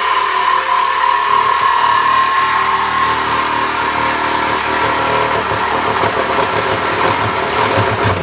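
Reciprocating saw running steadily as it cuts through a Ford Mustang GT's metal exhaust mid-pipe to take out the resonator for a mid-muffler delete. A high whine is strongest over the first three seconds.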